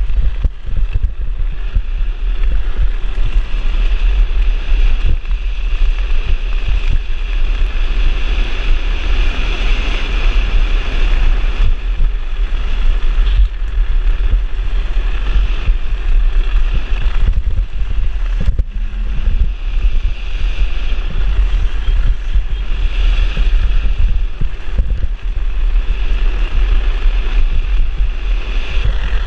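Loud, steady wind buffeting on the microphone at speed, over the rumble of a drift trike's wheels rolling on asphalt, with a hiss that swells now and then.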